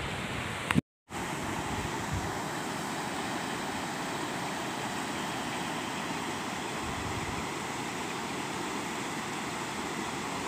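Turbulent canal water rushing steadily through the arches of a brick canal fall (weir), a continuous even rushing. It cuts out for a moment about a second in.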